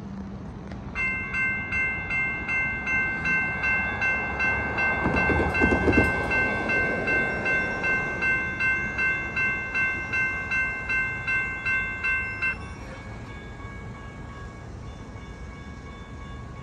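Railroad crossing bell ringing in an even pulse of about two strokes a second while the crossing lights flash and the gates lower, then cutting off suddenly once the gates are down. A rushing noise swells and fades midway through.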